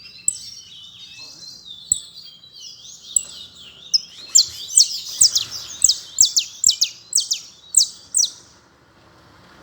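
Canary singing: a high warbling passage, then a run of loud, quickly falling whistled notes, about two a second, that stops about a second before the end.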